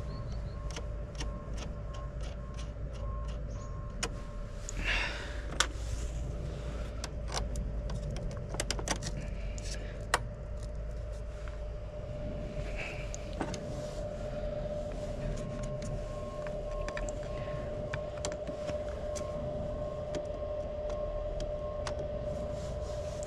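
Clicks and light knocks as a battery charger's crocodile clamps and leads are handled and clipped onto a car battery. Underneath runs a steady electronic tone, with two runs of rapid short beeps, one near the start and one later on.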